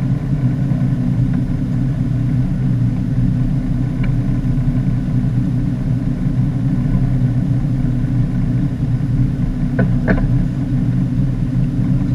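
Fishing boat's engine running steadily with a low, even hum, with a short click about 4 seconds in and another near the end.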